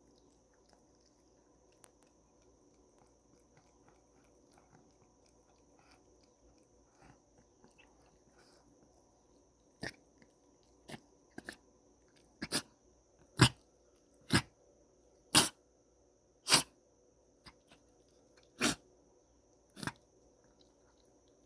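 A cat sneezing in a fit of about a dozen short, sharp sneezes, roughly one a second, beginning about halfway through after a quiet stretch; the middle sneezes are the loudest.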